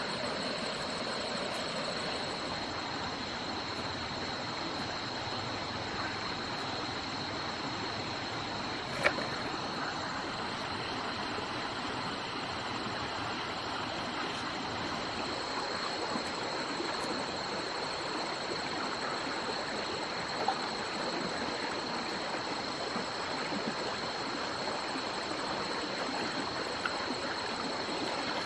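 Shallow forest stream running over rocks, a steady rushing, with a continuous high, even chorus of night insects such as crickets over it. A single sharp knock comes about nine seconds in, and fainter ones come later.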